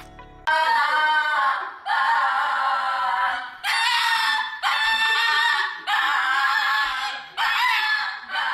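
A high-pitched voice crying out in a series of about six long wails, each a second or so, with short breaks between.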